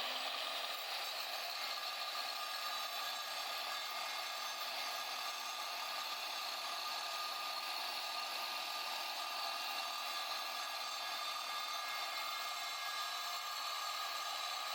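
DeWalt DWE490 9-inch angle grinder running steadily at full speed, an even motor whine that holds one pitch throughout.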